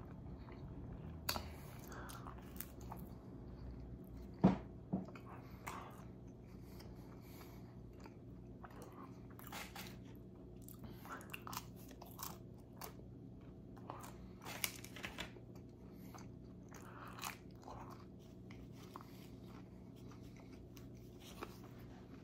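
Close-miked chewing and biting of pizza crust: soft mouth sounds broken by scattered short crunchy clicks, with one louder sharp click about four and a half seconds in.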